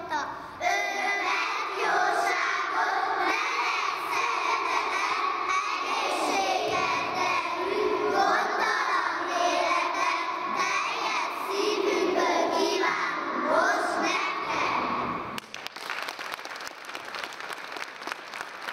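A class of young children singing a song together in chorus; the singing ends about fifteen seconds in and the audience breaks into applause.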